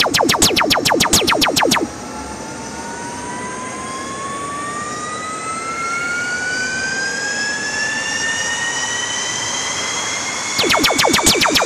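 Electric zapping sound effect for a lightning beam: rapid crackling zaps, about eight a second, then a whine that climbs steadily in pitch for about nine seconds, then the rapid zaps again near the end.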